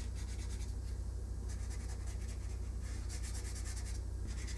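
Washable felt-tip marker rubbing in short, repeated strokes across a styrofoam foam tray as the flower stems are colored in green. A steady low hum runs underneath.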